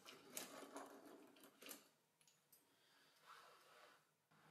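Faint clinks and rattles of old iron fittings being picked through by hand in a drawer, several in the first two seconds, then a soft rustle near the end.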